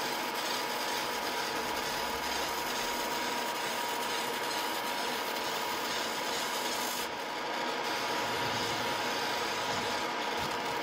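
EM Smart Basic 1 20 W galvo fibre laser engraving a metal business card: a steady hiss with a constant whine, the highest hiss thinning slightly about seven seconds in.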